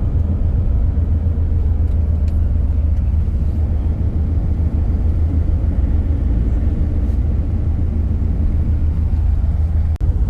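Motor vehicle driving: a steady low road and engine rumble.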